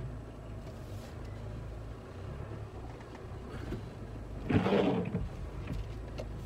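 Low, steady engine and tyre drone of a Nissan Pathfinder R51 driving slowly over soft sand, heard from inside the cabin. About four and a half seconds in there is a louder burst lasting about half a second.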